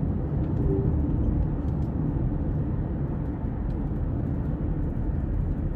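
Steady low rumble of vehicle road noise.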